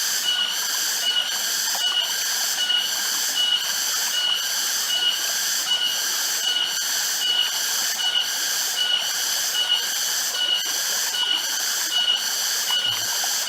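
High-pitched pulsing insect chorus, about two pulses a second over a steady ringing tone.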